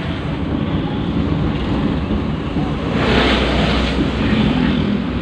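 Cabin road noise in a moving vehicle: steady engine and tyre rumble on a wet road, with a louder rush of noise about three seconds in as oncoming traffic passes.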